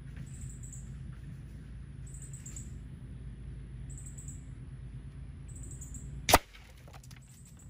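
A single shot from an AEA Challenger .357 bullpup PCP air rifle, fitted with an AEA regulator and firing a 110-grain Nielsen slug: one sharp crack about six seconds in. Under it a small electric fan hums steadily, and a short high chirp repeats about every second and a half.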